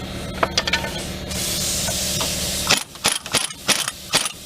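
Steel tools clinking and knocking on a rusted bolt as it is pried out of a truck's front suspension. A quick run of sharp metallic clinks fills the last second and a half, after a steady low hum stops.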